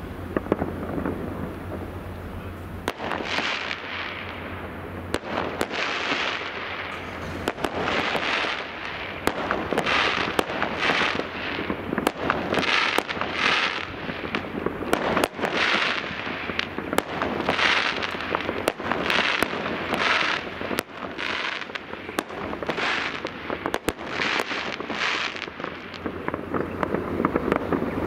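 Fireworks display: a string of sharp bangs from bursting shells. From about three seconds in there is also a short hissing rush roughly once a second.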